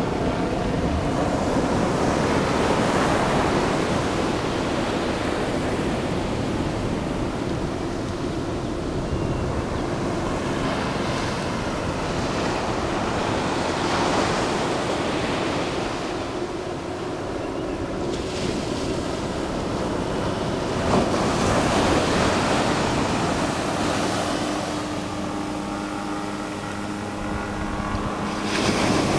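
Ocean surf breaking on a sandy beach, swelling and easing every few seconds, with wind on the microphone. A steady motor hum is heard at the start and again near the end.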